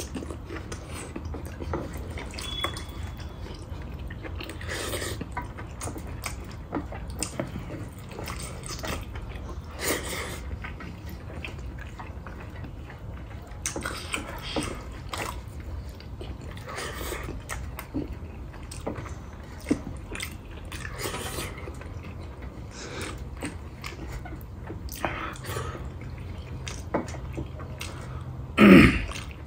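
Close-up eating sounds: chewing and mouth smacks, with fingers gathering rice and curry off a steel plate, over a low steady hum. A brief louder noise near the end.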